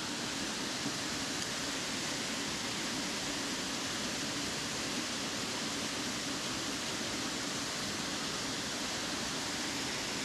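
Steady rush of a waterfall pouring into a river pool.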